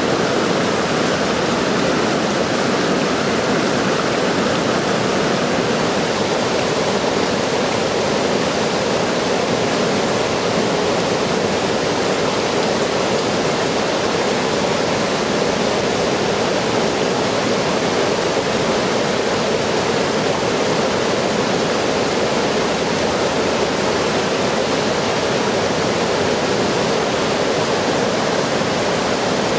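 Water pouring over a low river dam, a loud, steady rush with no breaks.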